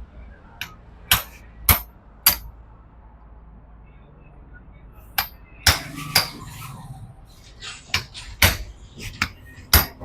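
Metal-on-metal hammer blows, single sharp strikes with a short ring, a few in quick succession, a pause of a couple of seconds, then more: knocking the old steering-head bearing races (cone-set rings) out of a Hero Splendor's head tube.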